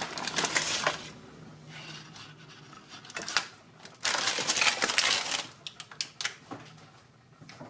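Parchment baking paper crinkling and rustling as it is peeled off a baked pound cake, in several bursts, with a few light knocks near the end as the cake is handled on a ceramic plate.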